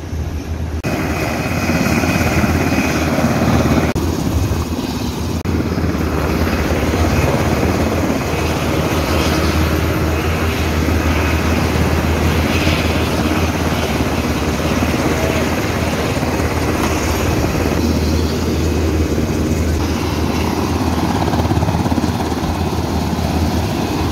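Helicopter running close by: a loud, steady low drone from its rotor and engine.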